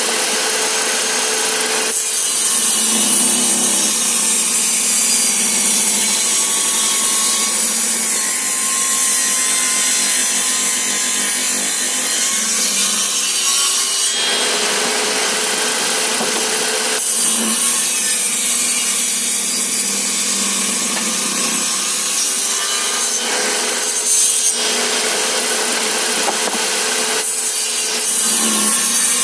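Electric circular saw running and cutting through wood: a continuous loud whine and rasp, with the motor note shifting several times as the blade's load changes.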